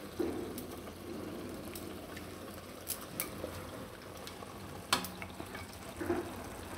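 Spinach purée being scraped with a spoon out of a steel bowl into a kadhai of grated tomato frying in oil, with a low sizzle and bubbling under a few sharp clicks of the spoon against the bowl, about three and five seconds in.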